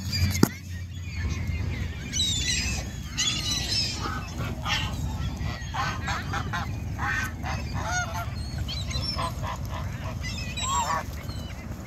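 A flock of gulls and domestic geese calling together: many short, overlapping squawks and honks that keep going without a break. A single sharp knock sounds just after the start.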